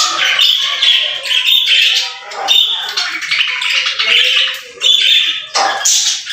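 Budgerigars chattering and warbling: a dense, continuous stream of chirps, squawks and quick warbled notes.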